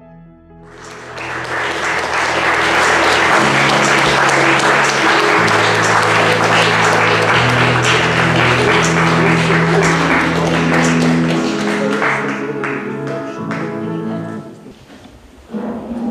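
Audience applauding, starting about a second in and dying away near the end, over slow background music with long held low notes.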